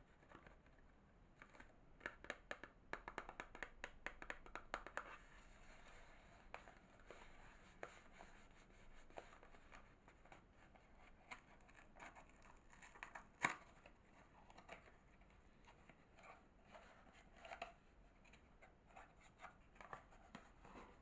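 Hands unwrapping soap, the wrapper crinkling and rustling in a quick flurry of crackles early on and in scattered crackles later, with one sharp click about thirteen seconds in.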